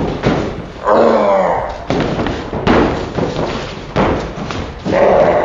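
A series of heavy thumps and knocks, about five in a few seconds, with a low voice sounding in between.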